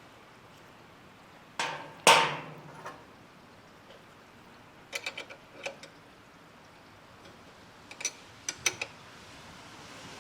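Metal hand tools clinking against a motorcycle light-mount bar clamp: two sharp knocks about a second and a half in, the second ringing briefly, then two runs of light quick clicks.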